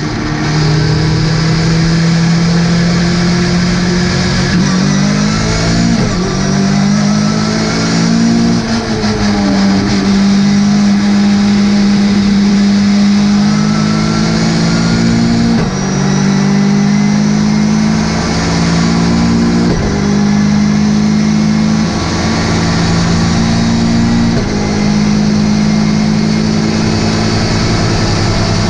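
Ginetta GT5 race car engine running under load, its note holding and then jumping in pitch several times as the driver changes gear.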